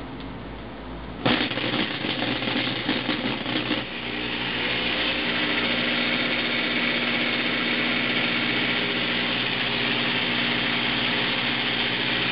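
Electric power drill motor, run through a homemade converter circuit, switching on suddenly about a second in, rising in pitch as it comes up to speed around four seconds in, then running steadily.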